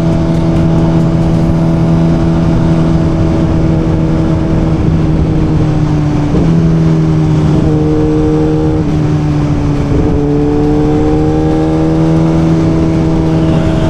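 Suzuki GSX-R1000 inline-four engine running at a steady cruise, with wind rush over the helmet. Its pitch drops a little about six seconds in and climbs slowly again near the end.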